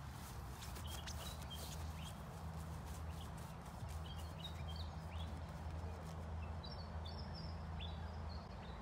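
Faint field ambience: small birds chirping in short high calls over a steady low hum, with a few clicks and rustles in the first couple of seconds as someone moves through the grass.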